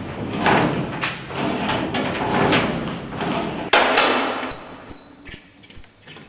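Rough scraping and shuffling noise for about four seconds, then scattered light metallic clinks with brief high rings from metal rods and a hand-cranked meat mincer being handled on a table.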